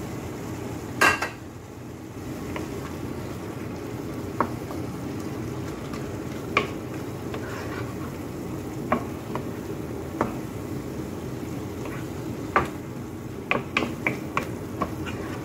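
Wooden spatula stirring ground beef sauce in a metal pan, knocking against the pan at uneven intervals every second or so, more often near the end. A loud clatter about a second in as a plate of chopped herbs is tipped into the pan, over a steady low hum.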